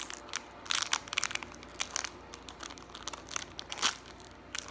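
Clear plastic wrapper crinkling as small fingers pick at it and pull it open: a run of quick, irregular crackles.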